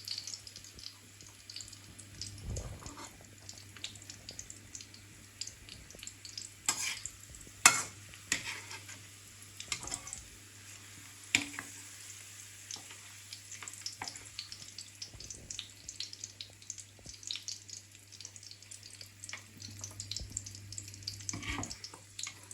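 Oil sizzling and crackling in a frying pan, with stirring and a few sharp knocks against the pan, the loudest about eight seconds in.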